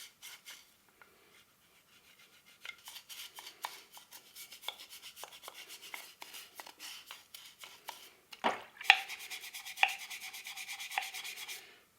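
A brush scrubbing a brass coffee grinder with dish soap and water, in short rubbing strokes. About two-thirds of the way through, the strokes become faster and more even, then stop just before the end.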